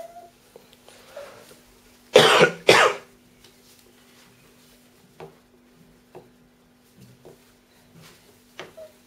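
A person coughing twice in quick succession, followed by a few faint clicks over a steady low hum.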